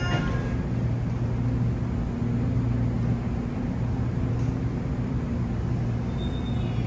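Steady low hum of a Seoul Line 3 subway train standing at an underground platform with its doors closed. A few faint high tones begin near the end.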